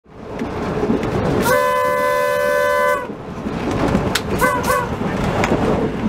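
A train's air horn sounds one long multi-note chord lasting about a second and a half, then two short toots, over the running noise of the train on the track. It is the whistle warning for a level crossing just ahead.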